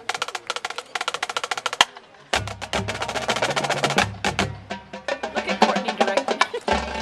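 Marching band drumline playing a cadence of rapid, sharp stick clicks. It breaks off about two seconds in, then comes back with drum strikes over low held notes from the band.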